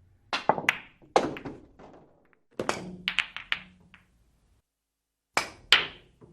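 Billiard balls clacking against each other in groups of sharp clicks. There are a few near the start, a quick run of several around the middle, and two more near the end.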